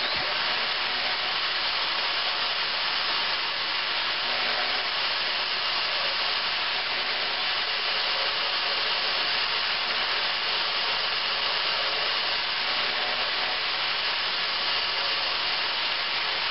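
Corded electric drill spinning a small sharpening stone against a steel hanger strap, grinding out a bolt hole to widen it. A steady, even grinding hiss.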